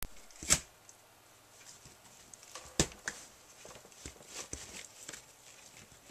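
A puppy chewing and tearing at a cardboard box: scattered crackling and rustling, with two sharp knocks, one about half a second in and one near three seconds.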